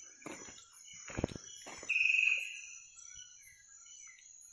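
Night forest chorus of insects chirring steadily at a high pitch, with a few dull thumps early on. About two seconds in, a loud short high call sounds, followed by fainter scattered chirps.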